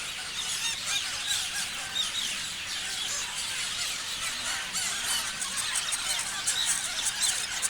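A flock of parrots chirping and screeching together in a dense, continuous chorus of overlapping shrill calls.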